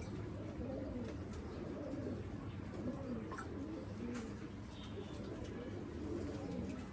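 Pigeons cooing over and over, the calls overlapping, over a steady low hum, with a couple of faint clicks about three and four seconds in.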